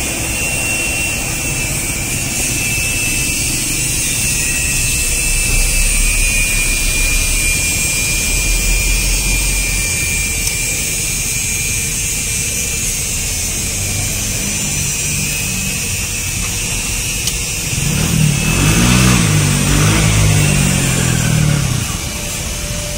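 Steady background of motor-vehicle traffic, with one vehicle passing close by near the end, its sound swelling and then fading away.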